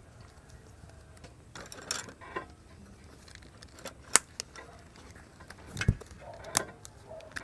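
Hand-work sounds of binding a banana-leaf-wrapped roll: banana leaves crinkling, wooden chopsticks clicking against each other and rubber bands being stretched tight around the bundle. There is a sharp click about four seconds in and a dull thump near six seconds.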